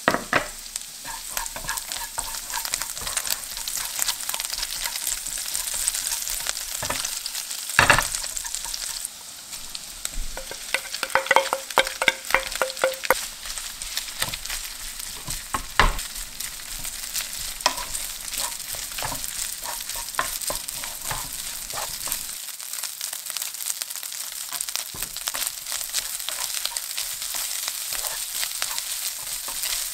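Garlic sizzling in hot oil in a nonstick frying pan, then cold cooked rice stir-fried with a wooden spoon: a steady sizzle with the spoon scraping and clicking against the pan. There are sharp knocks about 8 and 16 seconds in.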